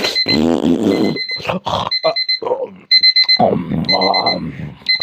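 Electronic alarm beeping: short bursts of rapid high beeps, about one burst a second, over a person's wordless vocal sounds.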